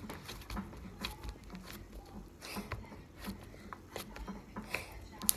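Homemade glitter slime pressed and patted flat on a tabletop by hand, making irregular sticky clicks and pops, with one sharper pop near the end.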